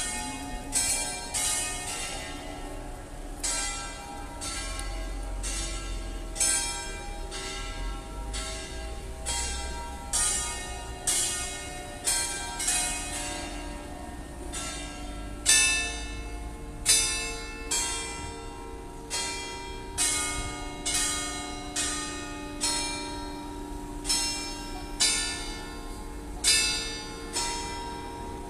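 Several church bells ringing from an open rooftop bell frame, struck irregularly about once or twice a second. Their tones overlap into a lingering hum between strikes, and the loudest strokes come a little past halfway.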